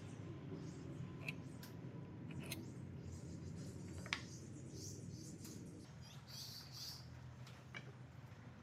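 Quiet workbench handling sounds: a pencil scratching along wood at first, then a few light clicks and taps of wooden pieces, the sharpest about four seconds in, and a soft scrape of boards sliding on the table a little after six seconds. A low steady hum runs underneath.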